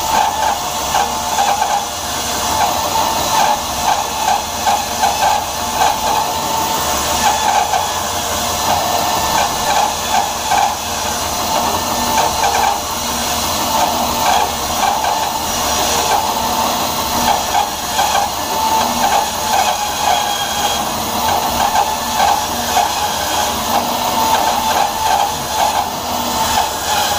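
Bandsaw fitted with a half-inch, 4-teeth-per-inch Timber Wolf blade resawing a thick wooden block. The cut makes a steady hissing noise that wavers as the block is fed through.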